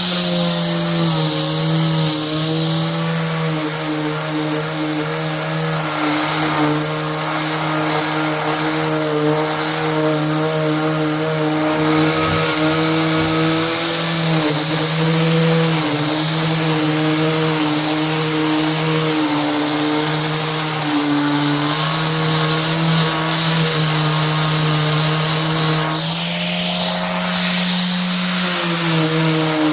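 Electric woodworking power tool running steadily with a motor hum, its pitch dipping slightly a few times, as under load, over a high hiss.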